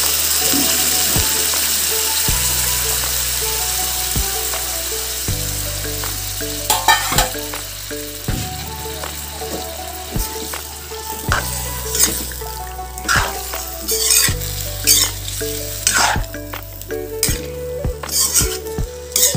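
Jackfruit curry sizzling in a metal kadai, the sizzle fading over the first half. From about a third of the way in, a metal ladle scrapes and clinks against the pan in stirring strokes, roughly one a second. Background music plays throughout.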